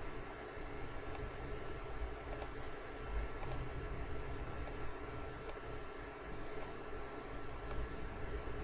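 Faint, sparse computer mouse clicks, about one a second, some coming as quick double clicks. A faint steady electrical hum and room tone lie beneath them.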